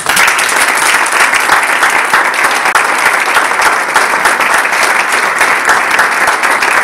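A small crowd applauding, performers and audience clapping together. It bursts in suddenly and holds steady.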